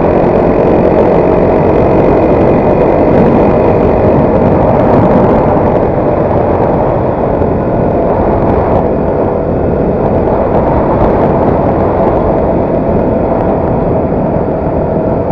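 Motorcycle engine running steadily while riding at speed, mixed with heavy wind noise on the action camera's built-in microphone.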